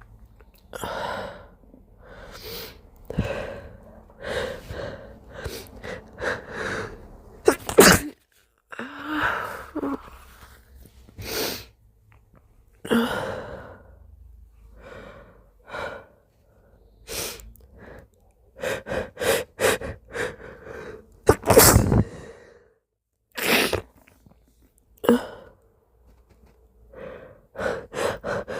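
A person's sneezing fit: repeated hitching build-up breaths in short catches, broken by sudden sneezes, the loudest about eight seconds in and again just past twenty seconds.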